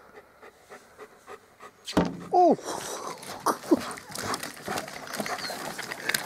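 A German shepherd panting with quick, short breaths. About two seconds in, louder outdoor noise with scattered clicks takes over, with a short call that slides up and back down in pitch.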